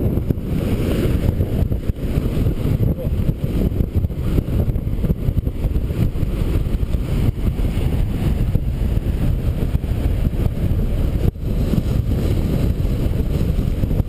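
Strong gusting wind buffeting the GoPro's microphone: a loud, continuous low rumble that swells and sags with the gusts, with a brief dip about eleven seconds in.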